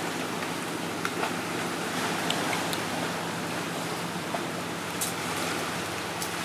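Sea surf washing steadily on a rocky shore, with a few sharp crackles from a small wood fire burning under a pan.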